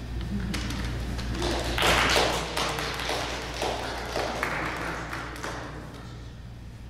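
Footsteps and scattered taps and thuds on a hard floor, loudest about two seconds in and fading out near the end, over a steady low hum.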